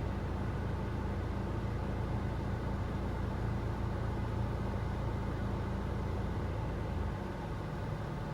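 Steady low rumble inside the cabin of a Mitsubishi Delica D:5 clean diesel, with the engine running and the air conditioning on; the rumble eases a little about seven seconds in.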